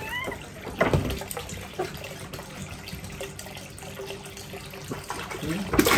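Water from a tap pouring steadily into a shallow inflatable pool, with two brief louder noises, one about a second in and one near the end.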